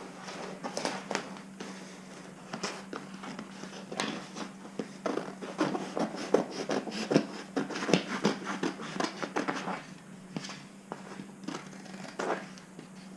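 Vinyl wrap film being handled and cut: irregular crinkling, rustling and small clicks, busiest in the middle, over a steady low hum.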